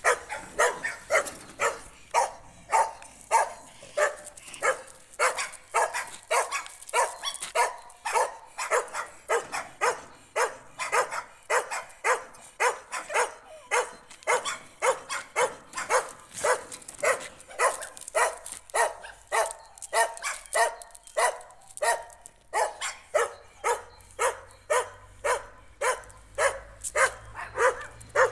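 A dog barking over and over at a steady, rapid pace, about two barks a second, with no let-up.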